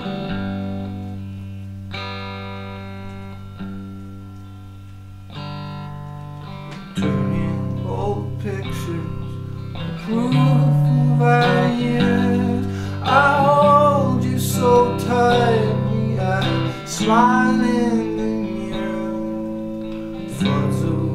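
Telecaster-style electric guitar played through a small Marshall combo amp: chords left ringing for the first several seconds, then busier picking from about seven seconds in. A man's voice sings long, bending notes over the guitar from about ten seconds in.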